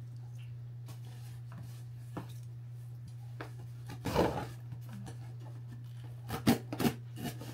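A cardboard shipping box being handled and its packing tape cut open with scissors: a rustling scrape about four seconds in, then a few sharp clicks and snips near the end, over a steady low hum.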